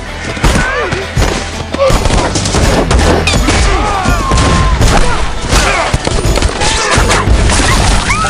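Rapid gunfire and impacts from a battle sound mix, over music with a steady heavy bass.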